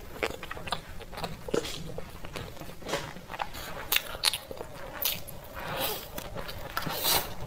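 Close-miked eating of a soft layered cake: wet mouth sounds and chewing, with short clicks and scrapes of a spoon in a plastic tub.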